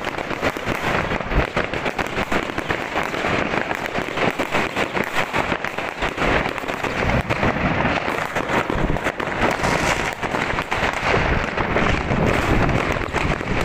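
Dense, continuous barrage of fireworks: many overlapping bangs and crackles going off without a pause.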